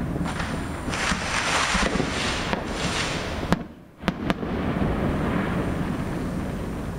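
Fireworks finale barrage: a dense crackle of many bursts going off together, a few sharp single bangs just past halfway, then a rumbling that slowly fades.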